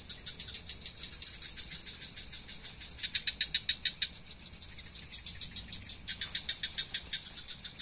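Night insects' steady, high-pitched shrill chorus, with a pulsed call over it: a loud run of about eight quick pulses about three seconds in, and a softer run near the end.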